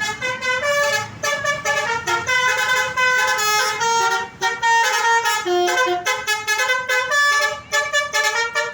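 Telolet basuri multi-tone bus horn playing a fast melody of short pitched toots, some notes held a little longer, with brief gaps between phrases.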